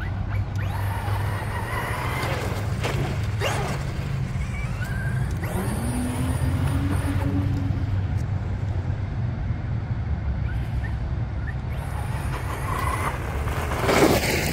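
Traxxas XRT electric RC monster truck running on two 4S batteries, driving over dirt. Its motor pitch rises and falls a few times over a steady low rumble.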